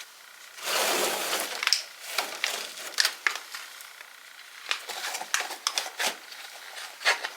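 Thin plastic being handled, crinkling and crackling with many small sharp clicks, with a louder rustle about a second in.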